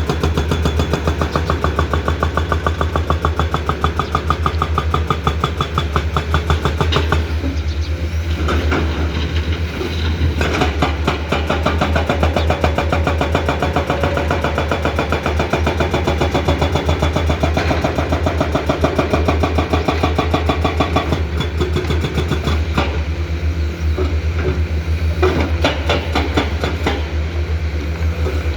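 Komatsu PC210 hydraulic excavator's diesel engine running steadily under working load, with a few knocks around a quarter of the way in and again near the end.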